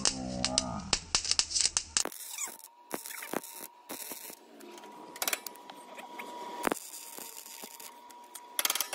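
Welding arc crackling and popping in irregular bursts, dense at first and sparser later, with a faint steady tone behind it for several seconds.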